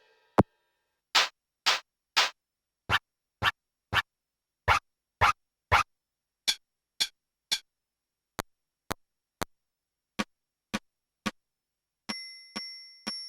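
SoundKing SD20AM electronic drum module voices being auditioned: short percussion hits in sets of three, about half a second apart, with a different sound in each set and clean silence between the hits. Near the end one metallic hit rings with a few steady tones and fades out.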